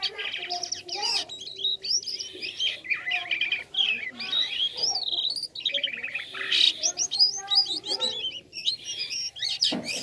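Jalak kapas (white-shouldered starling) singing a continuous, varied run of rapid chirps and whistled sweeps, rising and falling in quick succession, with a toy-like quality to the voice.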